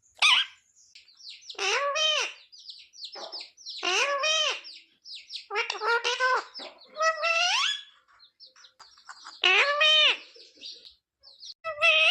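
Pet parrot calling in a string of about seven short, pitched cries. Each cry slides up and then down in pitch, with short gaps between them.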